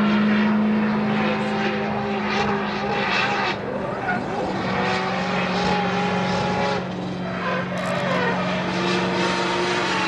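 Engine noise: a steady low hum under a higher, wavering engine note that rises and falls, typical of drift cars held at high revs while sliding.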